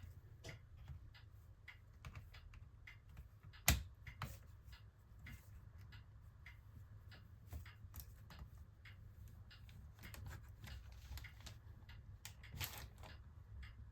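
Scattered small clicks and taps of laptop parts being handled and fitted while the screen assembly and its hinges are brought back into place, with one sharper knock about four seconds in.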